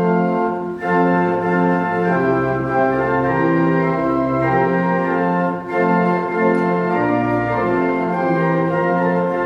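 Organ playing held chords over a bass line that steps from note to note, with short breaks between phrases, as a postlude closing a church service.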